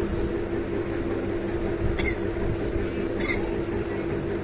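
A steady mechanical hum with a constant tone. Two short, sharp sounds come about a second apart in the middle.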